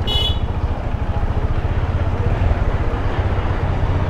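Motorcycle engine running at low speed, a steady low rumble close to the microphone. A short high beep sounds right at the start.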